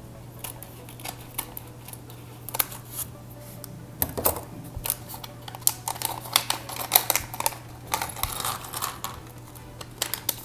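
Scissors snipping through a foil pouch with a few sharp clicks, then from about four seconds in a quick run of crinkles and clicks as the foil bag is pulled open by hand and small plastic LEGO pieces tumble out onto a plastic baseplate.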